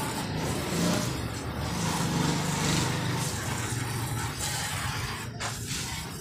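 A motor vehicle passing in the street: a low engine hum builds about a second in and fades out after about four seconds, over a steady hiss of street noise.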